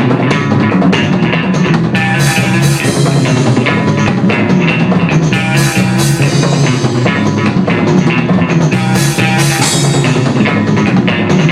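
Instrumental rock band playing live: electric guitar over a drum kit, with cymbal crashes every few seconds.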